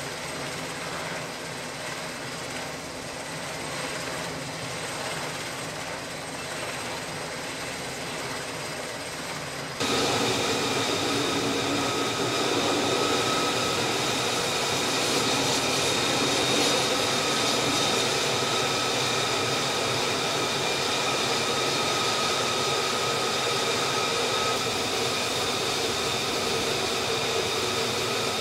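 F-35C's Pratt & Whitney F135 jet engine running at low power on the flight deck, a steady rush of air with a high turbine whine; it becomes abruptly louder about ten seconds in.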